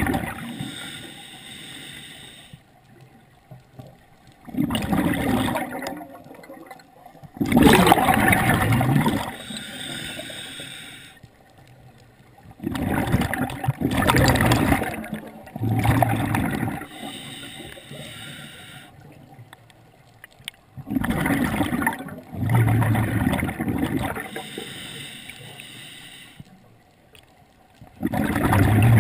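Scuba diver breathing through a regulator underwater: a faint hiss on each inhale, then loud bursts of bubbling on each exhale, the bursts coming every few seconds.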